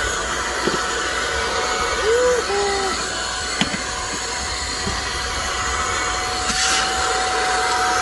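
Voar Force B35 cordless stick vacuum's BLDC motor running steadily with a thin whine, sucking dust from a window track through its small brush nozzle.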